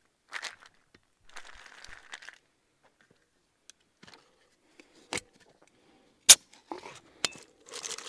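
Handling noises of an insulated steel tumbler being taken from a bag and its lid worked open: a stretch of rustling, then a few sharp clicks and knocks, the loudest about six seconds in.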